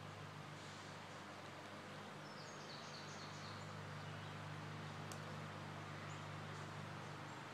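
Faint steady background hum, with a few faint bird chirps near the middle and a single soft click a little later.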